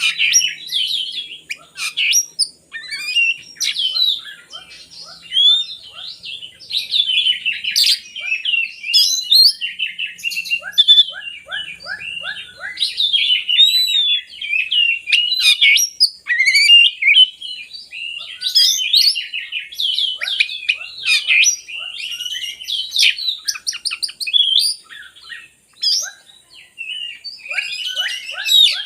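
Oriental magpie-robin (kacer) singing a loud, continuous, varied song of quick whistles, trills and chattering phrases, with short runs of rapid repeated notes.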